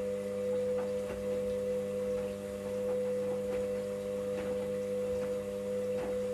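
Washing machine running with a steady electric hum and faint clicks and sloshing; the hum cuts off abruptly near the end.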